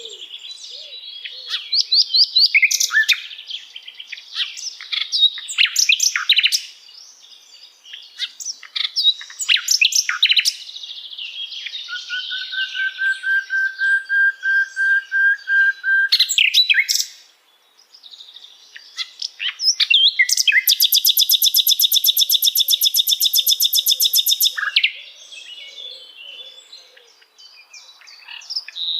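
Common nightingale singing a string of varied phrases of quick whistles and chattering notes. In the middle comes one long, steady whistled note, and later a loud, very rapid trill held for about four seconds.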